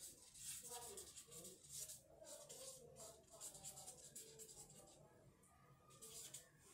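Felt-tip marker scratching across flip-chart paper in short, quick writing strokes, faint. The strokes pause for a second or so, then a last few come near the end.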